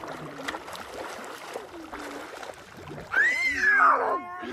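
Water splashing around swimmers, then about three seconds in a child's loud, high-pitched squeal that rises and falls for about a second.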